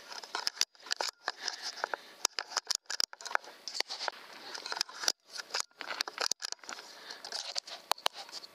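Suppressed air rifle shots in quick succession: a dozen or more sharp cracks and clicks, broken by several abrupt cuts to silence.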